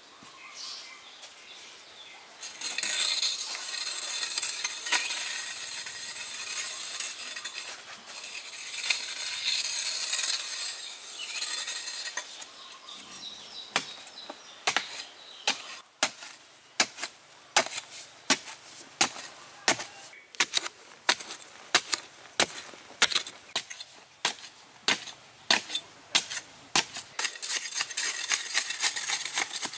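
A metal digging tool, a hoe or digging bar, chopping into packed sandy soil in a steady run of sharp strikes, about three every two seconds, through the second half. Before that, and again near the end, a loud high-pitched hiss fills the sound.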